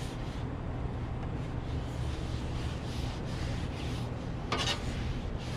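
Paper towels rubbing oil across the hot rolled-steel top of a Blackstone griddle during seasoning, in repeated wiping strokes, with one brief louder scrape about four and a half seconds in, over a steady low rush.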